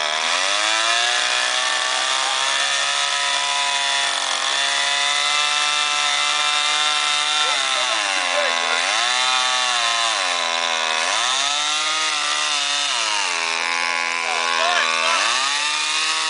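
Gas chainsaw running at high speed while carving a block of ice. Its pitch holds steady for the first half, then drops and rises again several times in the second half.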